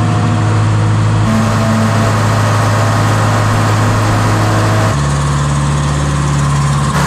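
Diesel engine of a JCB compact track loader running steadily at low speed. Its note jumps to a higher pitch about five seconds in.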